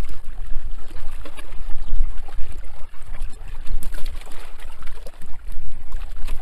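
Water splashing and trickling in a shallow fish pond, with many small irregular splashes and drips over a low rumble, as a fishing net is worked through the water.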